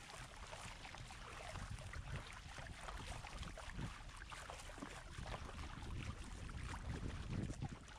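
Water splashing and lapping around an inflatable kayak as it is paddled along, in small irregular splashes, with wind rumbling on the microphone.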